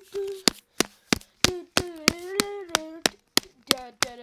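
Sharp smacks in a steady rhythm, about three a second, with a voice humming a wordless tune in between.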